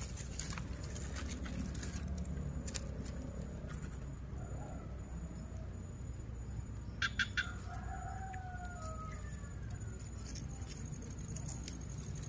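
A rooster crows in the distance about eight seconds in, a falling, drawn-out call of about two seconds, preceded by a few short sharp sounds. Under it runs a steady low outdoor background with a faint high steady tone.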